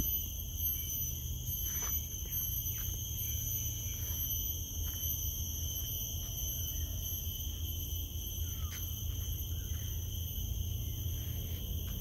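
A loud chorus of crickets: a steady, high-pitched ringing drone made of several tones that never break, with faint ticks and a low rumble underneath.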